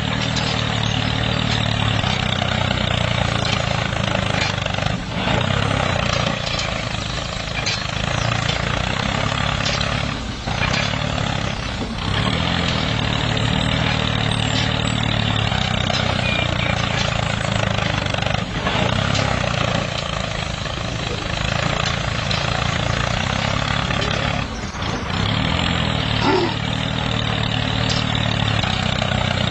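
An engine running steadily with a constant noisy hiss over it, dipping briefly a few times.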